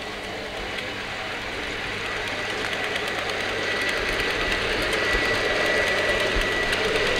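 A steady mechanical running sound with a thin high whine, growing steadily louder.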